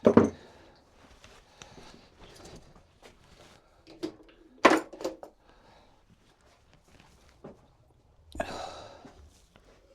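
Wooden gate parts, spindles and rails, knocked and handled during a dry fit: a sharp wooden knock at the start, two more knocks about four and five seconds in, and a short scraping sound near the end.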